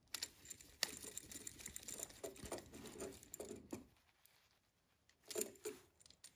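Faint clicks, taps and rustling from hands fitting a wire's spade terminal onto the screw terminal of an electrical receptacle, busy for the first four seconds, then a short pause and a few more clicks.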